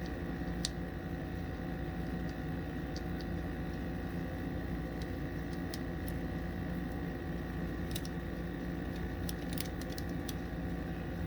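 Steady room hum, with scattered light clicks as a small screw and magazine extension parts are handled and fitted with a multi-tool.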